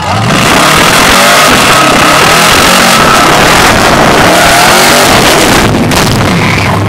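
American muscle car doing a burnout: the engine held at high revs while the rear tyres spin and smoke. Very loud from the first moment, easing off slightly about six seconds in as another car passes close.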